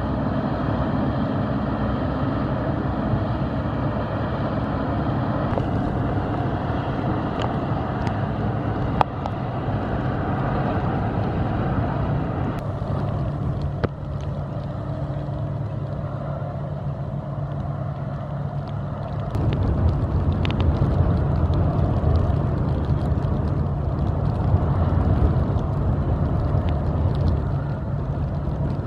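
Inland motor cargo vessel's diesel engine running steadily as the vessel passes close, with water washing along its hull. The low engine drone grows louder about two-thirds of the way through as the stern wheelhouse comes abreast.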